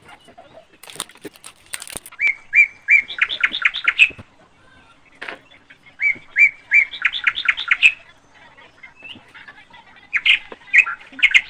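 A songbird singing. It repeats a phrase of a few level whistled notes followed by a quick run of rapid notes, three times. A few sharp clicks come early on.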